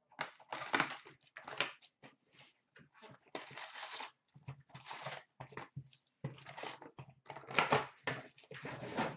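A cardboard box of Upper Deck SP Authentic hockey cards being torn open by hand and its foil-wrapped card packs pulled out, with irregular tearing, crinkling and rustling of cardboard and wrappers.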